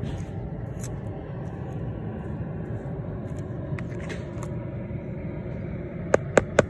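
Potting soil being pushed by hand over a buried pepper in a plastic pot: a few faint gritty scratches over a steady low rumble. Near the end, three sharp taps in quick succession.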